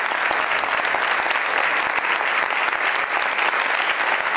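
Concert audience applauding steadily in a recital hall, a dense, even clapping that carries on through the whole stretch.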